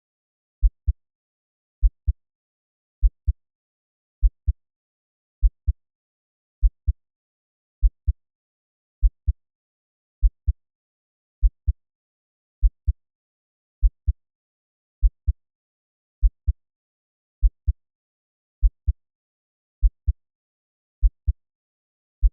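Slow heartbeat at 50 beats per minute: a low double thump, lub-dub, repeating evenly about every 1.2 seconds with silence between beats.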